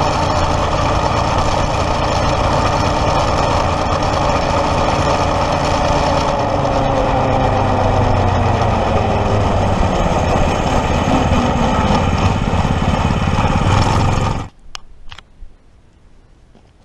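Predator 212 single-cylinder four-stroke engine running on a gas-powered Power Wheels kart, its pitch shifting up and down as the speed changes. The sound cuts off abruptly near the end, followed by a couple of faint knocks.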